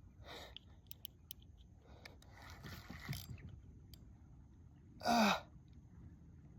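A man breathing hard and exhaling in heavy breaths while straining against a heavy fish on the rod, with a short grunt falling in pitch about five seconds in. A few faint sharp clicks sound about a second in.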